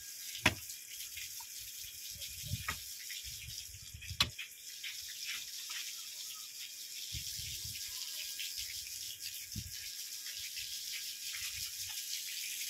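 Pickaxe being swung into packed soil and rubble: a sharp strike about half a second in, more strikes over the next few seconds, then scattered dull thuds of loosened earth, over a steady hiss.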